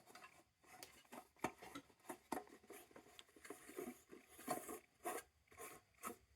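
Faint, irregular clicks, taps and light scrapes of hands handling and fitting the parts of an old battery lantern.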